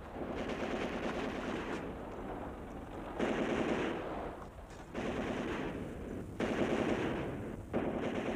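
Bursts of automatic machine-gun fire, about five rapid bursts of a second or two each with short gaps between them.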